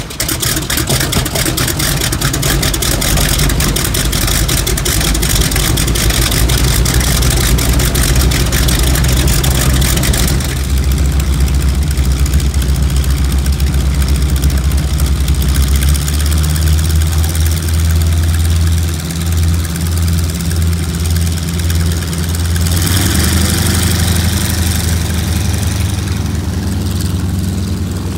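Two North American T-6 Texan trainers' Pratt & Whitney R-1340 nine-cylinder radial engines idling with a fast pulsing beat. About 23 seconds in, one engine is opened up and grows louder as its aircraft starts to taxi.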